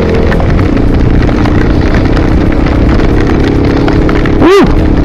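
Mondial RX3i Evo's 250 cc single-cylinder engine running steadily on the move under heavy wind rumble on the microphone, with light ticks of rain on the helmet camera. About four and a half seconds in there is a brief chirp that rises and falls in pitch.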